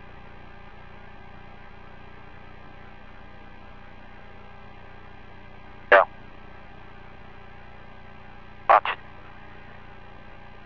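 Steady electrical hum on a spacecraft radio and intercom feed, broken by one short loud blip about six seconds in and a quick pair of blips near the end.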